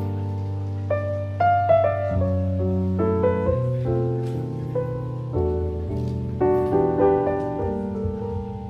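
Background piano music, slow and gentle, with sustained low chords under a melody.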